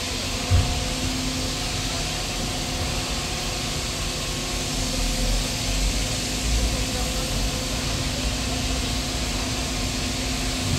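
Steady hum of heavy construction machinery engines running, over a constant hiss of site noise, with a single thump about half a second in.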